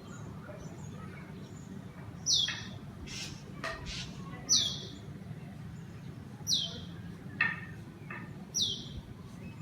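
A bird repeating the same short, high call about every two seconds, four times, with a few shorter chirps in between, over a steady low rumble.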